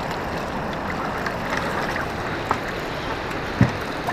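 Steady rushing noise of water and wind around a drifting fishing boat, with a faint click about two and a half seconds in and a short, louder knock near the end.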